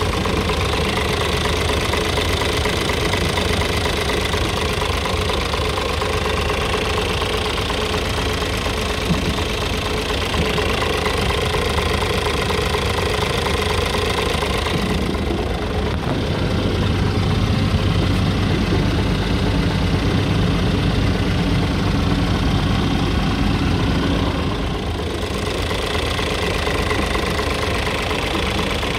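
Scania R tractor unit's inline diesel engine idling steadily, heard up close in the open engine bay with the cab tilted forward.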